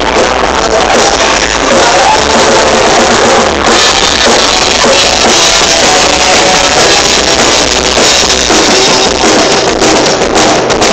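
A live rock band playing loudly, drum kit to the fore, picked up at close range. The sound grows brighter and denser about four seconds in.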